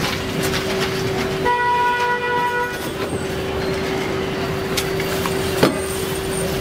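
Street background noise with a steady hum, and a vehicle horn sounding once for just over a second, about a second and a half in.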